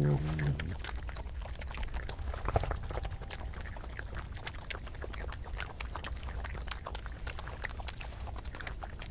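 A European badger's low growl ends about half a second in. Then come dense, irregular clicks and crackles of badgers foraging and chewing food on the grass, with one louder click about two and a half seconds in.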